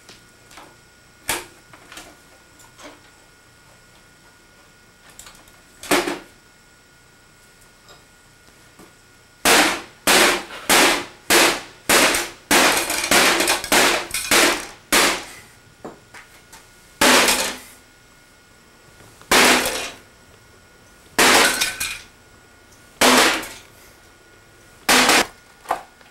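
Hammer striking a VCR's casing: a few light taps, then a quick run of hard blows starting about ten seconds in, then single heavy blows a couple of seconds apart.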